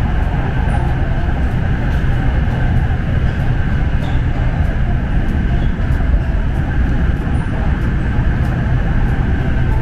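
Steady running rumble and hum of an SRT Red Line electric commuter train in motion, heard from aboard the train.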